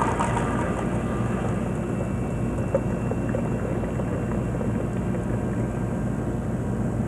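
Hot-coffee vending machine running as it dispenses: a steady low mechanical hum with a few faint clicks.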